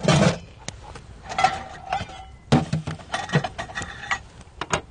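A metal ladle clinks and scrapes in a metal mess tin while soup is ladled out into a bowl: a string of irregular knocks, the first the loudest, some ringing briefly.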